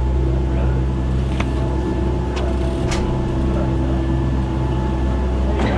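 A steady low mechanical hum with several steady tones, broken by a few sharp clicks and a brief rush of noise near the end.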